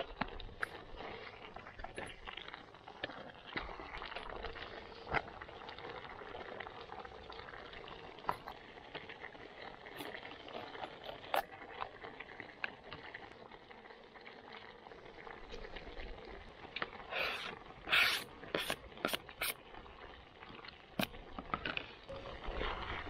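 Thick chilli sauce bubbling at a simmer in a Trangia pot over the meths burner, with light clicks and taps as ingredients drop into the pot. A run of sharper clicks about three quarters of the way through comes as chopped red pepper is tipped in.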